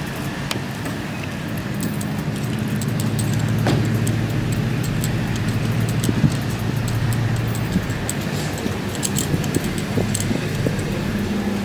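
Steady low hum of vehicle engines running, with scattered light clicks over it.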